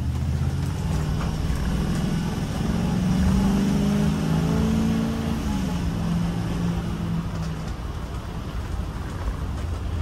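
Ford-chassis motorhome's engine heard from inside the cab, pulling away and rising in pitch under acceleration, then dropping suddenly about halfway through as the transmission shifts up, over steady road noise.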